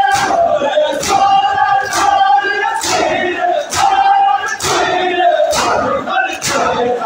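Crowd of men chanting a noha in unison, with sharp, even beats about once a second, the chest-beating (matam) that keeps the noha's rhythm.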